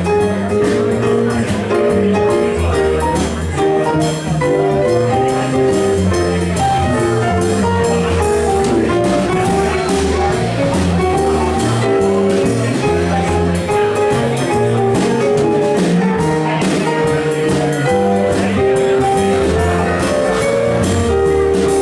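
Live band playing an instrumental break: a keyboard melody over electric bass and drum kit, with no singing.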